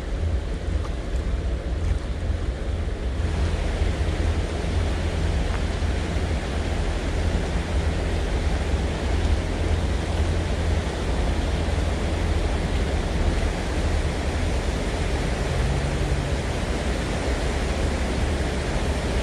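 Wind buffeting a bow-mounted camera's microphone: a steady rushing with a deep low rumble, getting fuller about three seconds in.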